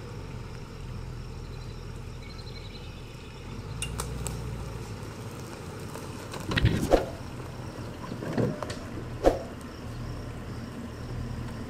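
Range Rover Sport engine running low and steady as the SUV creeps slowly down a rutted slope, with a few sharp knocks about four seconds in and several dull thumps between about six and nine seconds in.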